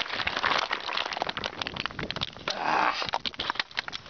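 Handling noise from a hand-held phone jostled during a scramble down rocky ground: dense irregular crackling, scraping and clicking, with a brief rush of noise near the start and again about two and a half seconds in.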